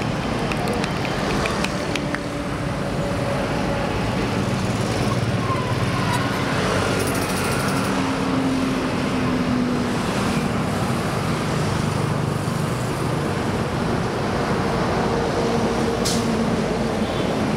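Steady roadside traffic from a busy highway: cars and motorbikes passing close by, a continuous hum of engines and tyres.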